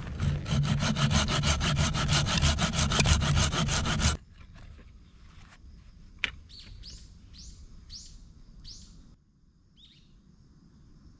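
Saw cutting through a piece of firewood in quick, even strokes, stopping abruptly about four seconds in.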